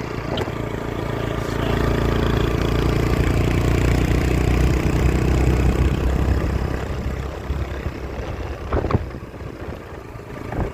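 A motor vehicle's engine running, growing louder over the first couple of seconds, holding, then fading in the last few seconds.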